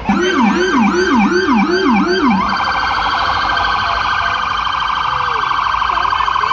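Electronic emergency-vehicle siren sounding a yelp that rises and falls about twice a second, then switching about two and a half seconds in to a faster, steady warble.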